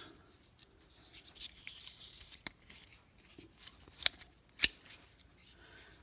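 Roxon Spark multitool pliers being handled and flexed in the hand: soft rubbing and a few light clicks from the plastic-clad handles and jaws, the two sharpest clicks close together about two-thirds of the way through.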